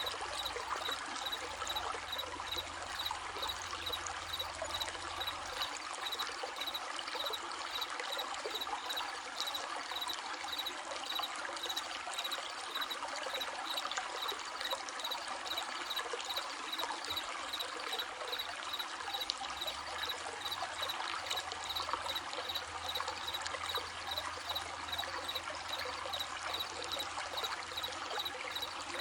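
Running stream trickling and babbling steadily, with crickets chirping in a fast, even rhythm.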